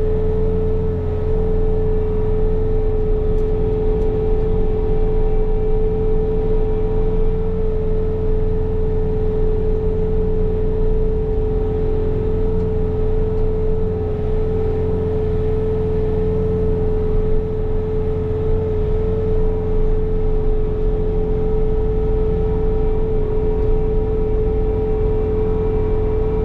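Bobcat T66 compact track loader running at high throttle and driving a snow blower attachment: a steady engine drone with a strong constant whine over it, no change in speed.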